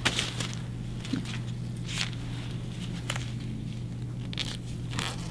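Gloved hands handling a SorbaView adhesive film dressing, peeling it and pressing it down over an epidural catheter: a handful of short, scratchy rustles over a steady low hum.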